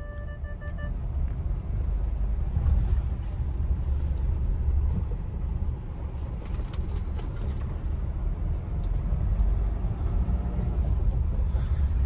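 Car driving slowly along a rough, wet dirt track, heard from inside the cabin: a steady low rumble of engine and tyres, with faint small knocks from the bumpy surface.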